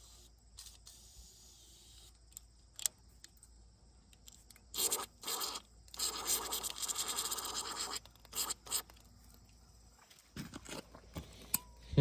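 Short hissing blasts forced through the Farmall A tractor's clogged fuel line to clear it; the longest lasts about two seconds, a little past the middle. Light scraping handling noises come in between.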